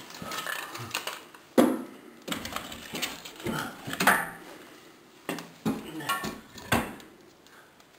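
Split firewood loaded into a wood stove: a series of irregular knocks and clunks as the logs strike each other and the stove's metal firebox.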